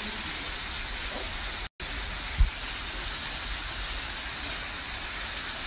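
Steady rushing hiss of rainwater pouring off a sandstone rock face as a small waterfall. The sound cuts out for an instant about a second and a half in, and a single dull bump follows soon after.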